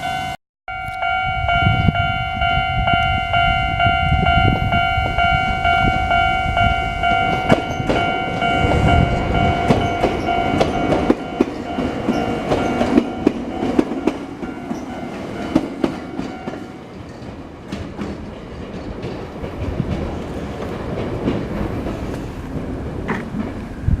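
Chichibu Railway electric train running on the rails: a steady rumble with repeated clicks from the rail joints. A steady high hum rides over it and fades away about halfway through.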